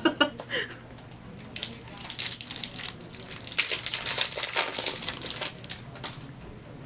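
Foil trading-card booster pack wrapper crinkling as it is handled and opened: a run of sharp, rapid rustles for about four seconds, stopping near the end.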